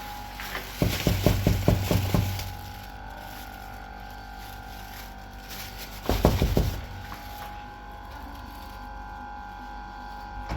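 A quick run of knocks or thumps about a second in, then a shorter cluster about six seconds in, over a steady faint hum.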